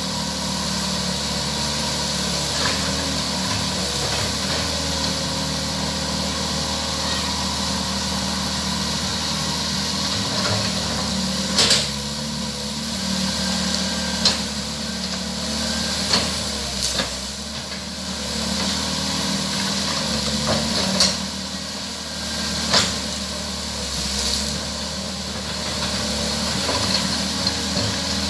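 Hydraulic excavator's diesel engine running steadily under work. A handful of sharp knocks stand out over it.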